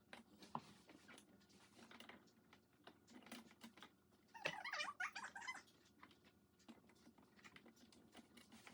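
Plastic dishwasher parts being handled: faint light clicks and knocks, with a brief burst of squeaking, plastic rubbing on plastic, about four and a half seconds in.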